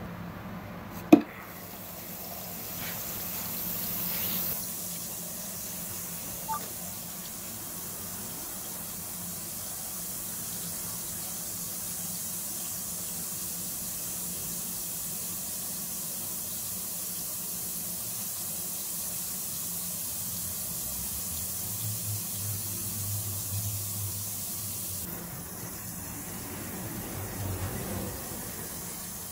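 A carbonated bath bomb dropped into a glass bowl of water with a sharp plop about a second in, then fizzing with a steady hiss as it dissolves.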